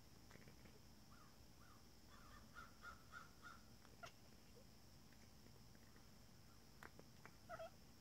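Long-haired calico cat chattering at birds: faint, quick chirps, a run of about four a second in the middle and two more near the end.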